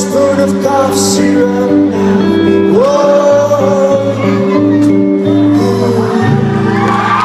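Rock band playing live: guitar and bass holding steady notes under a male voice singing long held notes, the voice sliding up into a held note about three seconds in.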